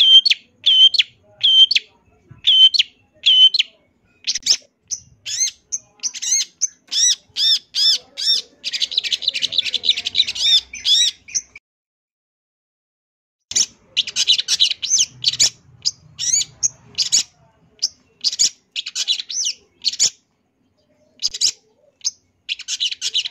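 Long-tailed shrike (cendet) singing: a row of short, sharp, repeated high calls, breaking into fast chattering. It falls silent for about two seconds near the middle, then resumes with more calls and chatter.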